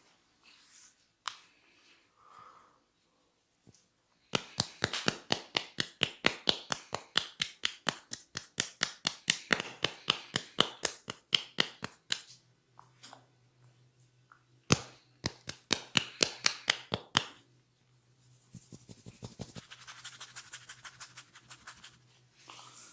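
Percussive massage: hands striking the body in a fast, even chopping rhythm of about five strikes a second, in two long runs with one louder single strike between them. Softer rubbing follows near the end.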